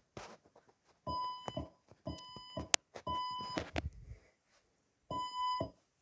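Fire-Lite voice evacuation alarm tone sounding the temporal-three evacuation pattern: three half-second beeps about a second apart, a pause, and the next set beginning near the end. A sharp click cuts in during the second beep.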